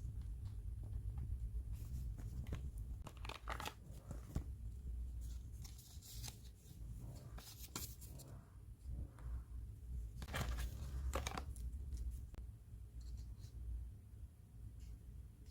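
Product packaging being torn open and handled: a series of short tearing and rustling strokes, some in quick runs, with a few small clicks, over a steady low hum.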